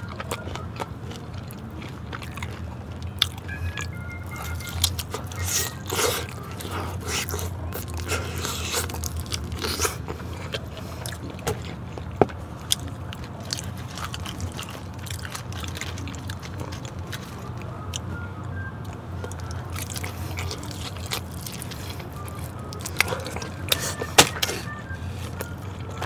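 Close-miked eating of crispy fried chicken: crunchy bites and chewing, with sharp clicks and rustles from chopsticks and paper-lined takeout boxes, over a steady low hum.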